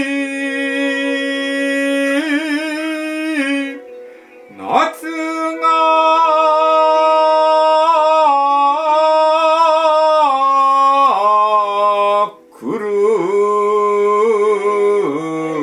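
A woman chanting a kayō-gin (shigin-style) song, holding long drawn-out vowels with wavering ornaments and slides between notes, over instrumental accompaniment. There is a short break with a breath about four seconds in before the next long phrase.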